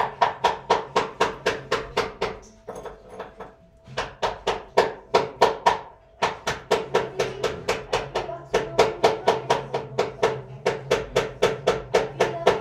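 A rapid, even series of sharp clicking pulses, about five or six a second, coming in runs of about two seconds separated by brief pauses.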